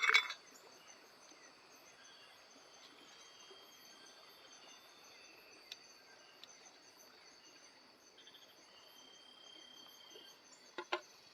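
Crickets and other night insects chirring steadily over a low even hiss, with a brief clatter right at the start and a couple of faint ticks partway through.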